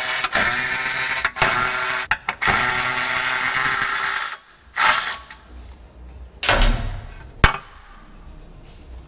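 Cordless power tool whirring in long bursts with a steady motor whine as it spins out the 10 mm bolts, stopping after about four seconds. Two short bursts follow, then a sharp click.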